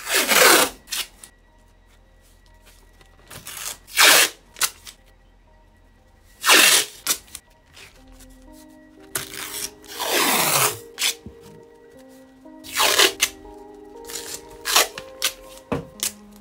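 Wide masking tape being pulled off the roll in about five long rips with small handling clicks between them, for a tape mod on a keyboard PCB. Soft background music comes in about halfway through.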